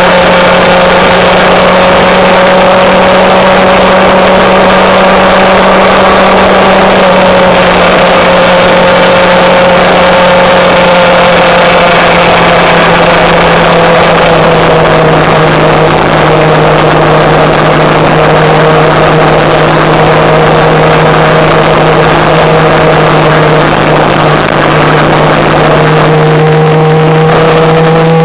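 Motorcycle engine running at a steady cruise, its note easing slightly lower about halfway through, under a constant loud rush of wind and road noise.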